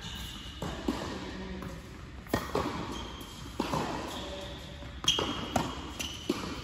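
Tennis ball rally: a series of sharp pops as the ball is struck by the rackets and bounces on the hard court, about one every one to two seconds, echoing in a large indoor hall.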